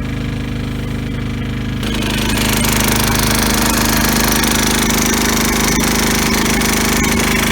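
Engine idling with a knocking clatter, then revved up about two seconds in and held steady at a higher speed.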